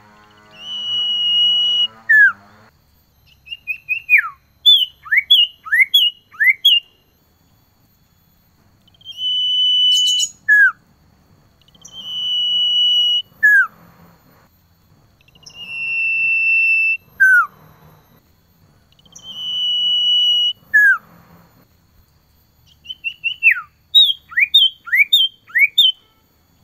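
Male common iora (cipoh) calling to a female. It gives long, level whistles, each ending in a sharp drop in pitch, repeated every few seconds, and two runs of four or five quick falling notes. There is a brief click about ten seconds in.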